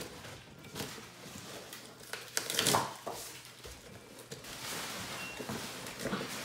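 A cardboard box being torn open by hand: scattered scrapes and rips of cardboard, with the loudest tearing about two and a half seconds in.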